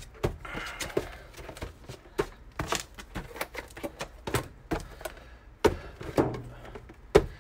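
Cardboard trading-card hobby boxes being picked up and set down on a table and on top of each other: a string of light, irregular knocks and taps.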